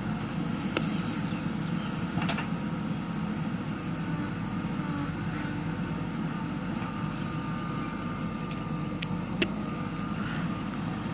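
JCB 3DX backhoe loader's diesel engine running steadily under work, with a few sharp metallic knocks, two of them close together near the end, and a faint steady whine coming in over the later seconds.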